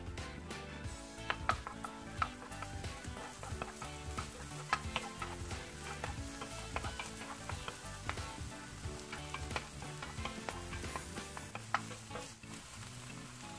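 Minced garlic and green onion sizzling in chili oil in a nonstick frying pan while a wooden spatula stirs them, with scattered knocks and scrapes of the spatula against the pan.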